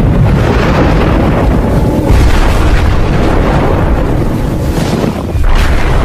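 Dark cinematic sound design for a horror intro: dense low rumbling with deep booms, swelling louder about two seconds in and again near the end.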